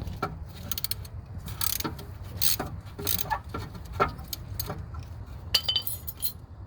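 Clamp being tightened against the brake caliper to press the piston back into its bore: a series of irregular metallic clicks and creaks.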